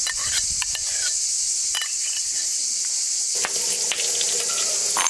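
A steady high chorus of insects, with soft scrapes and clinks from a spoon and bowl as thick yogurt is scooped, then sharp clicks near the end as a knife chips at a block of ice.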